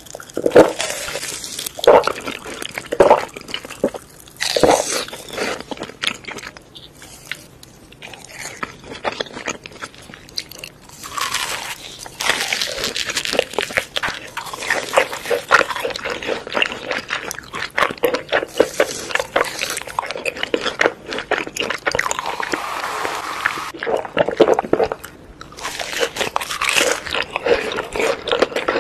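Biting and chewing crispy deep-fried, crumb-coated snacks, with many sharp crunches and crackles in bursts and quieter chewing between them.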